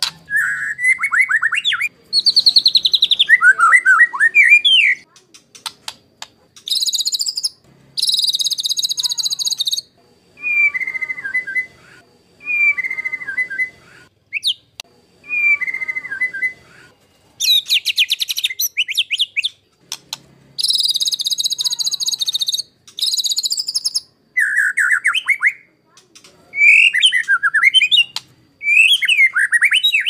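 White-rumped shama (murai batu) singing: loud, varied whistled phrases separated by short pauses. Bursts of harsh, rapid high rattling notes, the 'tembakan kasar' (rough shots) style, come a quarter of the way in and again past the middle.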